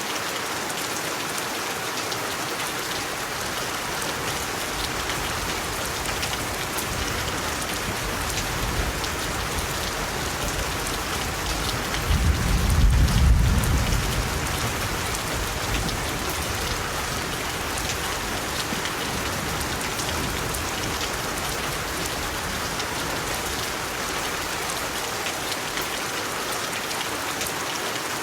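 Steady rain hiss. A low rumble of thunder swells about a third of the way in, is loudest near the middle, then fades back under the rain.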